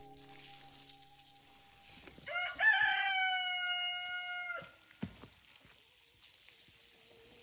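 A rooster crowing once, about two seconds in. The single crow lasts a little over two seconds: it rises at the start, holds steady, then cuts off sharply.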